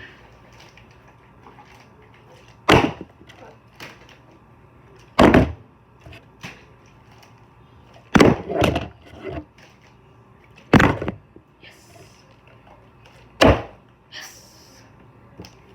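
A partly filled plastic water bottle being flipped and landing, five hard thuds about two and a half seconds apart, each followed by a couple of smaller knocks as it bounces or tips over.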